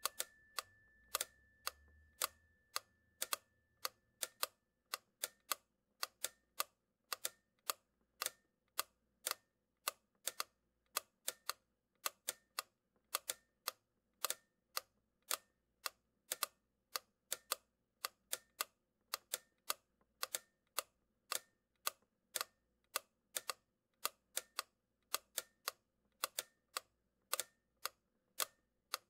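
A steady run of sharp clicks, about two to three a second and unevenly spaced. A faint high steady tone fades out over the first few seconds.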